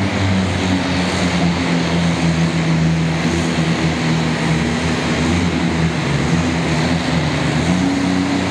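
Diesel engine of a sport-class pulling truck running hard at high revs, a loud steady drone that rises a little in pitch near the end.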